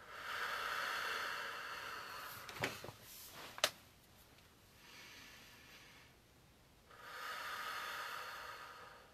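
A woman taking slow, deep breaths, in through the nose and out through the mouth: one long breath at the start, a faint one in the middle and another long one near the end. Two sharp clicks come about three seconds in.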